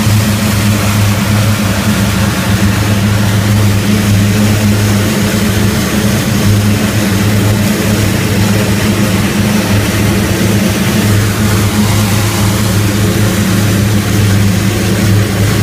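Rotec R3600 nine-cylinder radial aircraft engine running at a steady speed on a test stand, a loud, even drone that doesn't change.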